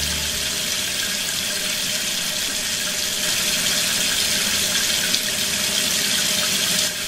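A thin stream of water pouring steadily from a small hose into a sand-filled wooden toy wagon, splashing like a running tap. It stops shortly before the end.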